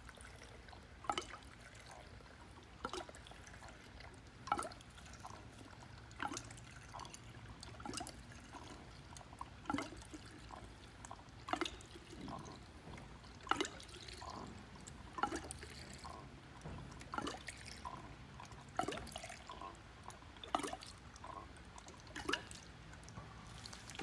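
Diesel pouring from a plastic jug's spout into a new spin-on fuel filter, filling it before it is fitted: a glug about every one and a half to two seconds as air gulps back into the jug, with fainter trickling between.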